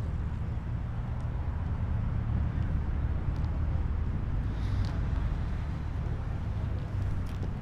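Steady low outdoor rumble, with a few faint ticks that fit footsteps on asphalt.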